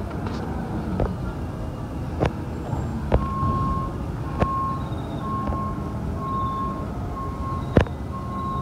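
Garbage truck's engine running, with its reverse alarm starting to beep steadily about three seconds in. Several sharp knocks sound over it.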